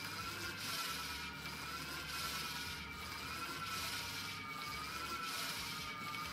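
Home-built rowing-machine generator in use: the chain and hub-motor generator with its large flywheel disc spin with a steady rubbing, ratcheting whir. A faint whine and a hiss swell and fall back about every one and a half seconds, with each rowing stroke.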